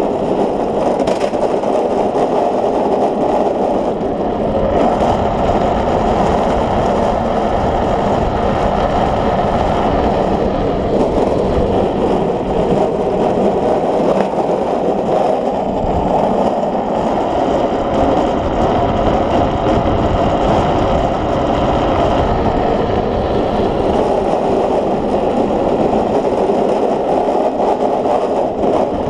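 Unpowered speed trike rolling fast down an asphalt road: a steady rush of wind and wheel noise with no engine.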